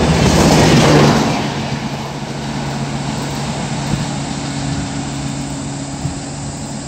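The last red-and-grey AC coaches of an Indian Railways express rush past at speed for about the first second. Then the noise drops to a steadier, lower rumble with a low steady hum as the train moves away down the line.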